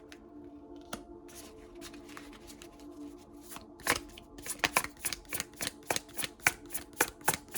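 Tarot cards being shuffled by hand: soft scattered riffling at first, then, from about halfway in, a fast run of sharp card snaps, several a second.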